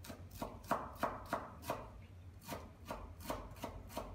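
Chef's knife chopping fresh Italian parsley on a wooden cutting board: quick, uneven strokes about three a second, with a short pause about two seconds in.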